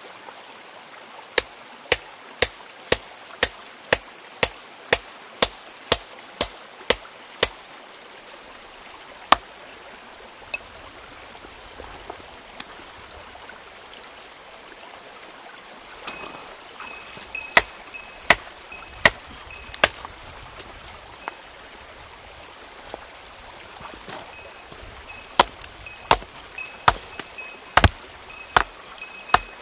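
A hammer striking stone to break open rock nodules in search of ammonite fossils inside: a run of about a dozen even blows, roughly two a second, then after a pause a second, uneven run of blows, many with a high ringing note. A stream runs steadily underneath.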